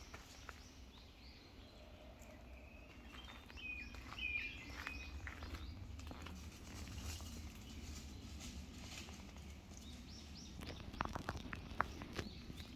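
A distant bird giving a few short chirping notes about four seconds in, over a faint low outdoor rumble. Footsteps on a forest path crunch more closely together near the end.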